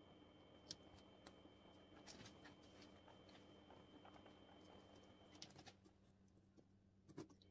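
Near silence with faint, scattered rustles and ticks from guinea pigs moving over paper and shredded paper bedding, a few louder ticks near the end.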